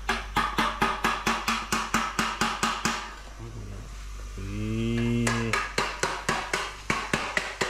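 Hammer blows on sheet metal, a quick even run at about six strikes a second, stopping for about a second and a half near the middle and then resuming. During the pause a short low hum of a man's voice is heard.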